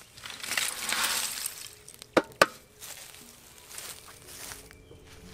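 Chunks of old lime-and-sand plaster poured out of a metal pot onto a rubble pile, rattling and crumbling for about a second, followed by two sharp knocks a little over two seconds in and some lighter scraping and rustling.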